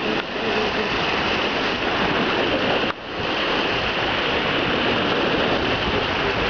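Choppy lake waves washing and splashing, a steady rushing noise that drops out briefly about three seconds in.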